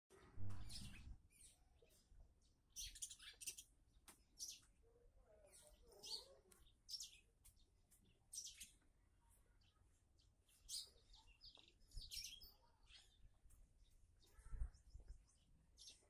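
Small birds chirping, short high chirps repeating every second or so, with a low thump about half a second in.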